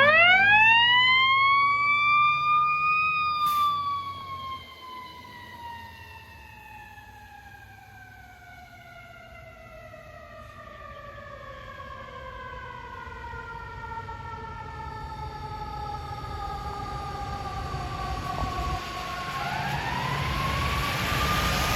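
Fire truck siren winding up to a high pitch over about three seconds, then slowly winding down for some fifteen seconds, and winding up again near the end. A low truck rumble lies under the loud opening seconds.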